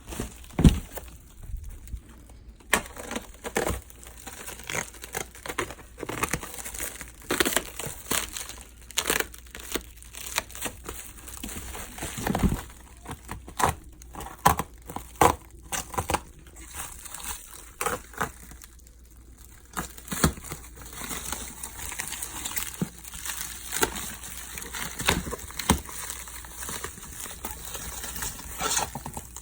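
Packing wrap crinkling and crackling as a motorcycle sub cage is unwrapped by hand, in irregular handfuls with scattered knocks.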